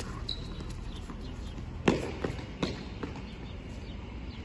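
Tennis ball struck hard with a racket on a hard court: one sharp crack about two seconds in, followed by a few fainter knocks.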